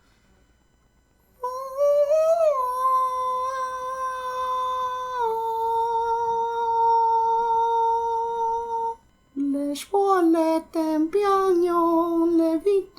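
A voice singing wordlessly: one long held high note that dips a step partway through, then a quick run of short notes stepping downward.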